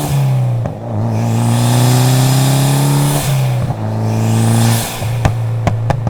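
Tuned Mitsubishi Lancer Evolution X's turbocharged 2.0-litre four-cylinder (4B11) accelerating hard, its revs climbing through two quick upshifts. Near the end the throttle closes and the exhaust lets out a run of sharp, irregular pops and crackles on the overrun.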